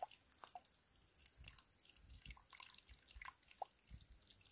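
Near silence, with faint scattered clicks and soft low thuds.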